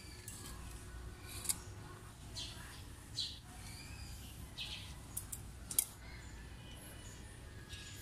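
Faint clicks and short scrapes of hands handling small metal parts at a road bike's front derailleur, over a low steady background hum.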